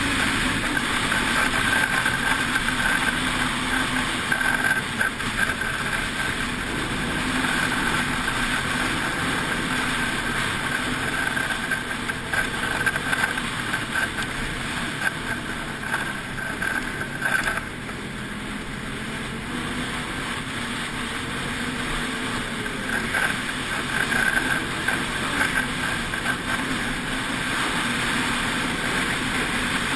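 Snowmobile engine running steadily at speed, with wind on the microphone. It eases off a little past halfway, then picks up again.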